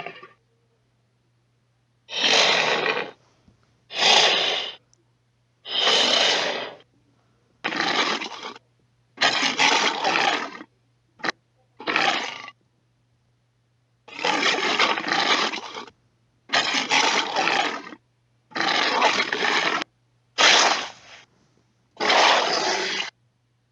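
Carcharodontosaurus dinosaur roar sound effects: about eleven separate harsh roars and growls, each one to two seconds long, with short silences between them. A very short snap comes about eleven seconds in, and a faint steady hum runs underneath.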